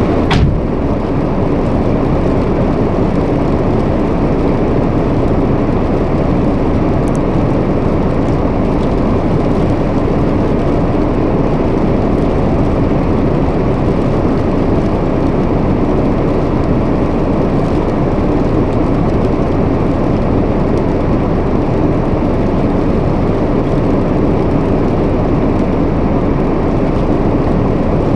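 Steady road and engine noise of a car driving, heard from inside the cabin, with one short click right at the start.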